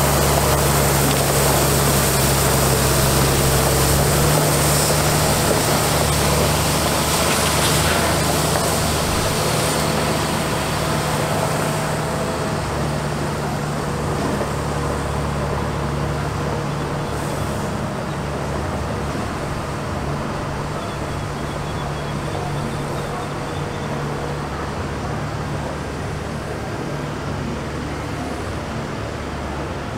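International DT466 diesel engine of a water truck running as the truck drives, with the hiss of water spraying from its PTO-pump spray heads. The sound grows gradually fainter as the truck moves away.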